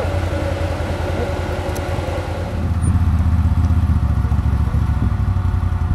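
ATV engine running at low revs with a steady rapid putter as the quad crawls up a steep, rocky trail. The engine grows louder about halfway through.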